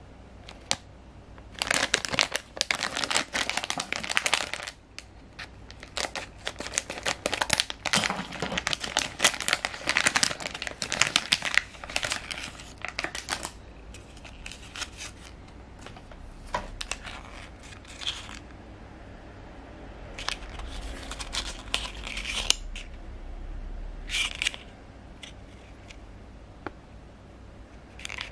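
Shiny plastic blind bag crinkling and tearing as it is opened by hand, dense for about ten seconds. Then a thinner clear plastic blister shell crackles and clicks more sparsely as it is handled.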